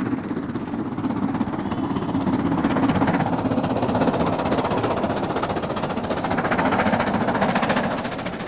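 LMS Coronation-class Pacific 46229 Duchess of Hamilton, a four-cylinder steam locomotive, working hard up a long climb: a loud, steady rush of exhaust and running noise that swells a few times and eases slightly near the end.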